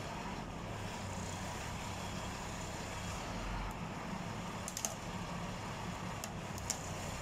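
Doosan MT41 articulated dump truck's diesel engine running steadily at low revs as the truck creeps down off a lowboy trailer, with a few sharp cracks in the second half.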